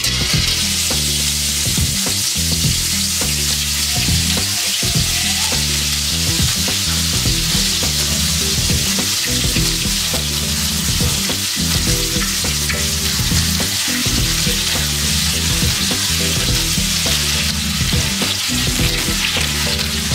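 Egg-chip batter, made of egg, flour, cornstarch and crushed ice, deep-frying in hot oil in a wok. It sets off a loud, steady sizzle as it is poured in.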